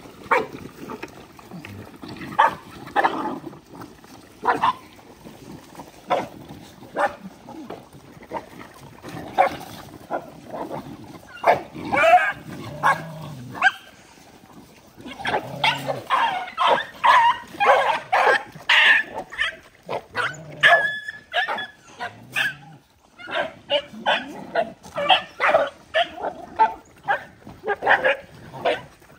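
A pack of dogs squabbling while they eat, with short barks and yelps that come in quick flurries, busiest in the middle and near the end.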